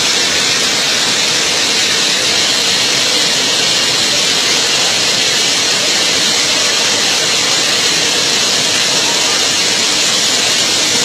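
Steady, loud rushing hiss of water, even and unbroken throughout.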